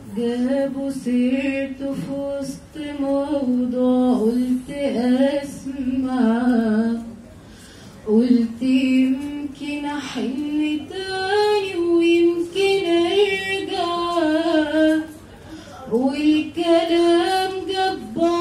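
A teenage girl singing solo and unaccompanied into a handheld microphone. She breaks briefly about seven seconds in, and the melody moves higher from about eleven seconds.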